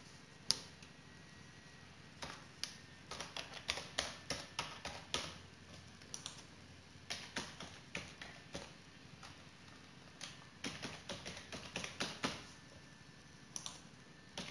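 Typing on a computer keyboard: short runs of quick keystrokes with pauses between them.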